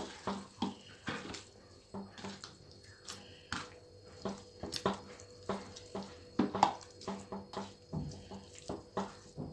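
Hands mixing raw chicken pieces coated in spice powders and ginger-garlic paste in a steel plate: irregular wet squelches and slaps, a few each second.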